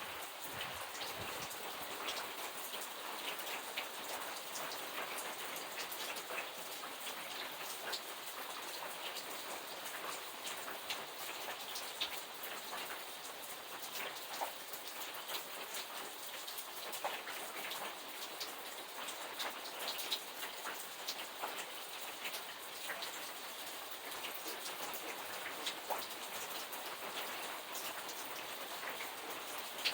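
Steady rain falling, with many separate drops ticking as they strike a surface.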